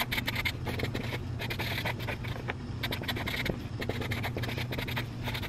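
Fine-point felt-tip marker scratching across paper card stock in quick, short strokes while handwriting a note.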